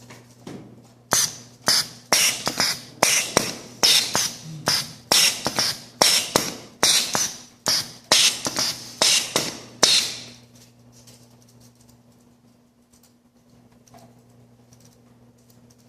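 Pneumatic cylinders and solenoid valves of a PLC-controlled pneumatic drilling rig cycling rapidly: a quick clack with a sharp hiss of exhausting air about twice a second, stopping about ten seconds in. A faint steady hum runs underneath.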